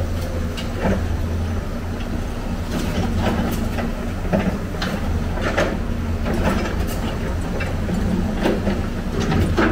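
Excavator's diesel engine running steadily, with irregular clanks and knocks of scrap metal being handled in a dump truck bed.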